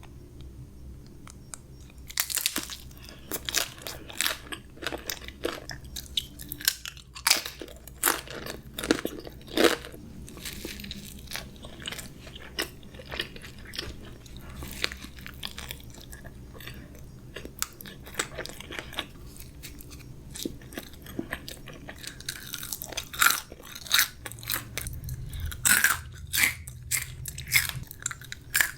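Close-miked chewing and biting of crunchy fast food, with loud, irregular crunches and wet mouth sounds throughout.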